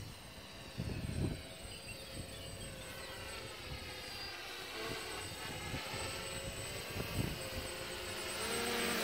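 DJI F450 quadcopter's four brushless motors and propellers buzzing in flight, their whine drifting up and down in pitch as the throttle is worked, and growing louder near the end as the drone comes close. Two brief low rumbles, about a second in and about seven seconds in.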